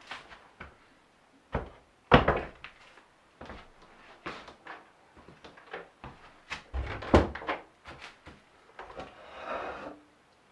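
Wooden pieces knocking and clattering as they are handled, with two loud knocks about two and seven seconds in, then a short scraping rub near the end.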